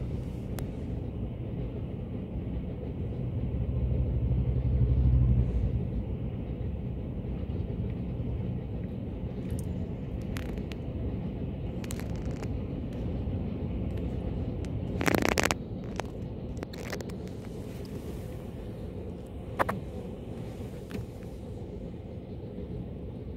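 Low steady vehicle rumble heard from inside a car waiting at a railway crossing, swelling about four to six seconds in. A sharp knock comes about fifteen seconds in and a fainter click near twenty.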